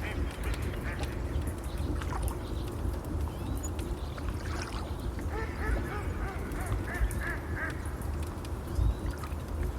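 A run of short waterfowl calls about halfway through, over a steady low rush of water and scattered crackles of a fire.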